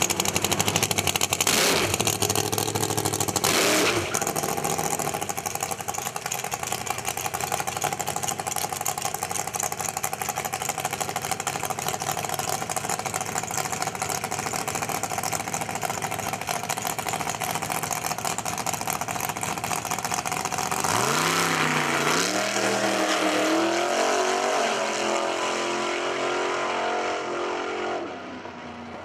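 A car engine running steadily, with two loud short blips in the first few seconds and revs rising and falling a little past two-thirds of the way through, before the sound drops away near the end.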